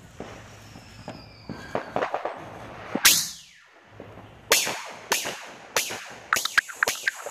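Aerial fireworks going off: one loud bang about three seconds in, then a run of about seven sharp cracks as the shells burst into sparks.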